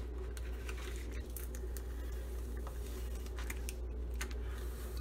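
Clear plastic crinkling with scattered small clicks and crackles as hands press and smooth an adhesive pocket onto a clear plastic planner page. A steady low hum runs underneath.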